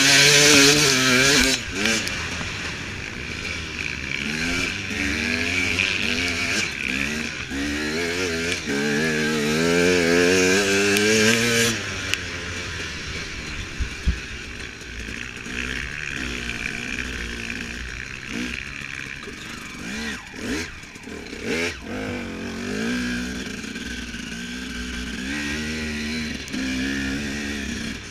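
Husaberg 300 two-stroke enduro engine revving up and down repeatedly as the dirt bike is ridden hard over rough, muddy ground. It is loudest for the first dozen seconds, then runs quieter, with a few knocks from the bumps.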